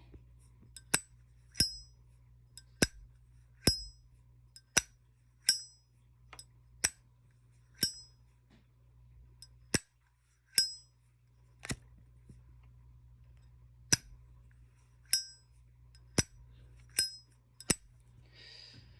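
Zippo lighter lids flicked open and snapped shut over and over at an uneven pace, about one click a second. Many of the clicks have a short metallic ring, and there is a brief scratchy sound near the end. The lighters have gone two weeks without maintenance, which the owner says makes them sound quite different.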